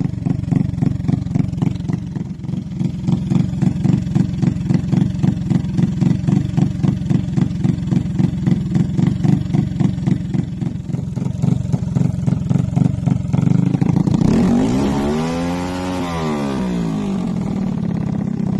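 Built 200cc motorcycle engine with a 60 mm big-bore block, big valves, stage 7 racing cam, 30 mm racing carburettor and SC Pipe exhaust, idling with a pulsing beat of about two a second. Near the end it is revved once, rising and falling back to idle.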